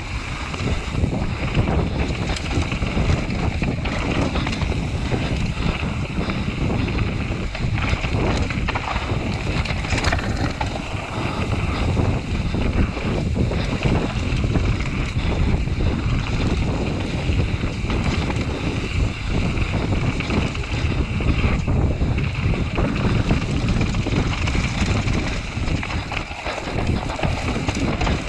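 Wind rushing over the microphone during a mountain-bike run down a trail, mixed with the rumble of tyres on dirt and frequent small bumps and rattles.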